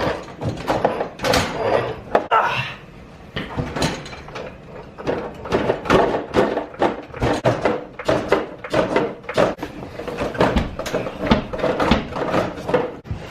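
A run of irregular knocks, clunks and clatter as the rear of a car is being jacked up and positioned.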